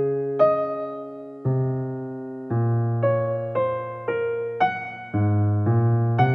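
Background music only: electric piano chords struck about once a second, each fading before the next.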